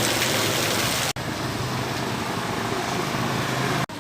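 Steady storm rain hiss mixed with a low, even engine-like hum. The sound breaks off abruptly about a second in and again near the end, each time resuming with a slightly different mix.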